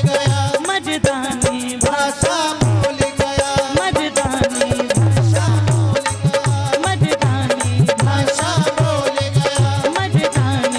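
Music: a sung melody over a steady, rhythmic drum beat with sharp percussive clicks.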